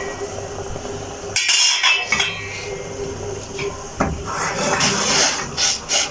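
Metal cooking pot and lid clattering and clinking in several bouts, over a steady hiss, as a pot of kahwa is handled on the stove.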